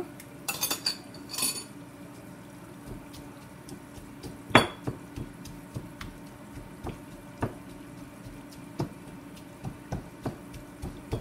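Metal kitchen utensils clinking and knocking against pots and dishes. A quick cluster of clinks comes in the first second and a half and one louder knock a little before halfway, then lighter taps about once a second.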